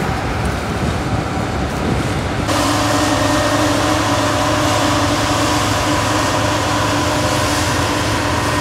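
Rostselmash Vector 410 combine harvester running steadily during direct combining of rapeseed: a steady mechanical hum under a hiss. About two and a half seconds in it suddenly gets louder and hissier.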